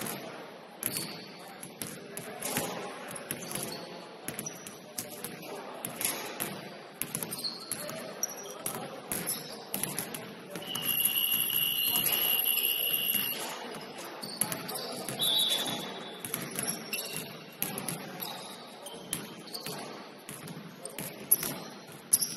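Basketballs bouncing on a hardwood gym floor, with short sneaker squeaks and voices echoing in the hall. About eleven seconds in, a long high-pitched tone sounds for about two and a half seconds.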